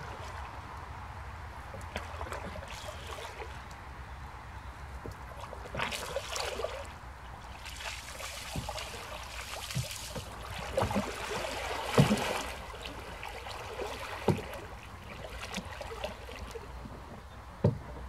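Single-bladed canoe paddle stroking through calm water beside an open canoe: repeated splashes and gurgles as the blade dips and pulls, with a few short sharp knocks, the loudest about two-thirds of the way in. A steady low wind rumble lies underneath.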